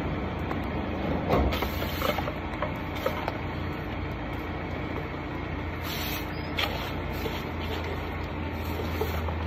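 Stick broom (walis tingting) scraping and knocking against pavement and litter in a few short strokes, over a steady low rumble of street traffic.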